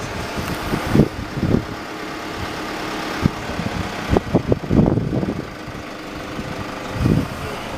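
Steady mechanical hum inside a Toyota HiAce van, with scattered short thumps and knocks, a cluster of them around the middle.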